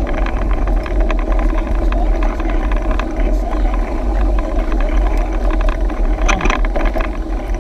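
Mountain bike rolling along a paved road: wind buffets the handlebar camera's microphone in a steady low rumble over tyre noise, with small rattles and clicks from the bike over bumps, a cluster of them about six seconds in.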